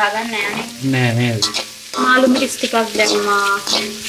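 Vegetables stir-frying in a wok: sizzling, with a metal ladle stirring and scraping against the pan.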